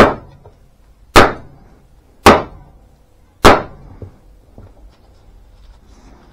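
Camp axe chopping into a piece of kindling wood: four sharp chops about a second apart. The wood is a little knotty.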